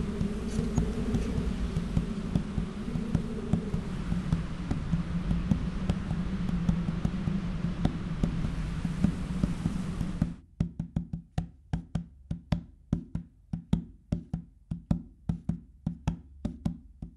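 Music soundtrack: a dense, droning texture with steady low tones that cuts off abruptly about ten seconds in, giving way to a quick, regular pattern of dry wood-block-like knocks.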